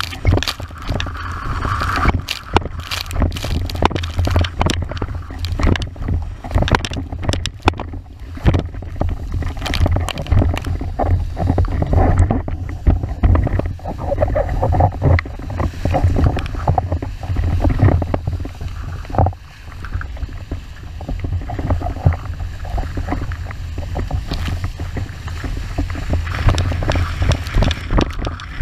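A windsurf board planing at speed over chop: water rushing and hissing under the hull, with frequent sharp splash hits as it slaps through the waves, over a heavy low rumble of wind buffeting the microphone.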